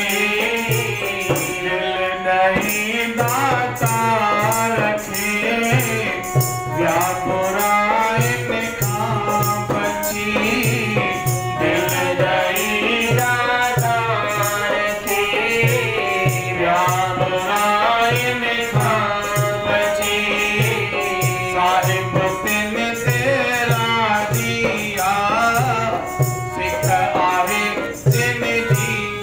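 A man singing a Hindi devotional bhajan in a gliding, ornamented solo voice, accompanied by sustained keyboard notes and a steady rhythm of shaker-like ticks over regular low drum beats.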